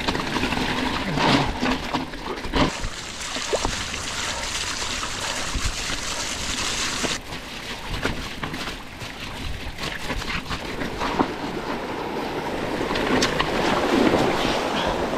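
Mountain bike being ridden through a rocky stream: a steady rush of splashing, sloshing water around the wheels, with scattered knocks of tyres and frame over stones. The brightest hiss of the splashing cuts off suddenly about seven seconds in.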